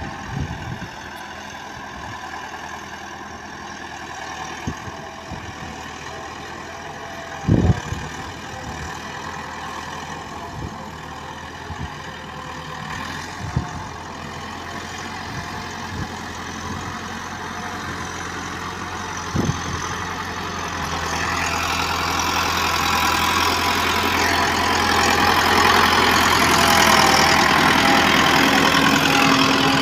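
Farm tractor's diesel engine running steadily as it pulls a tine cultivator through a flooded paddy. It grows louder over the last third as it comes close, with water and mud churning around its wheels. A few dull thumps fall in the first two-thirds.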